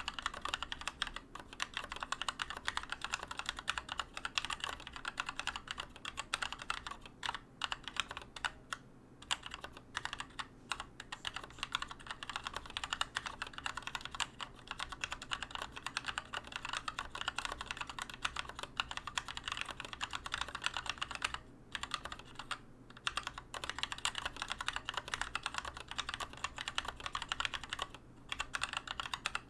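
Typing on a Keychron K2 mechanical keyboard with Gateron Red linear switches: a fast, continuous clatter of keystrokes with a few brief pauses. Its tall, hollow plastic case resonates, which makes the keyboard somewhat loud.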